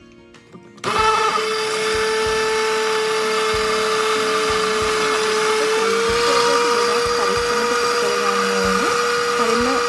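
Hand-held immersion blender switching on about a second in and running steadily in a tall plastic beaker, blending parsley, oil and clam gravy into a green mayonnaise. Its motor hum steps up slightly in pitch about six seconds in.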